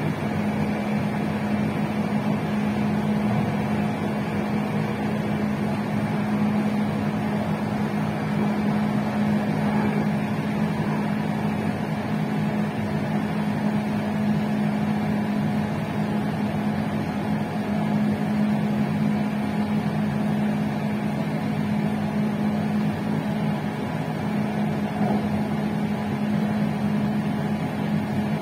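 Electric intercity passenger train running at steady speed, heard from on board at its rear: a constant electrical hum over even running noise, with no change in speed or pitch.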